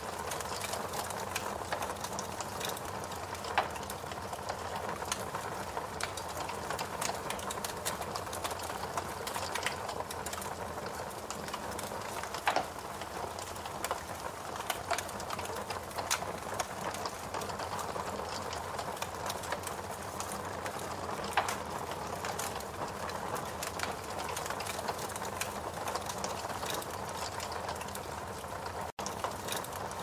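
Steady hiss and crackle of burning fire, with a few sharper pops at irregular moments.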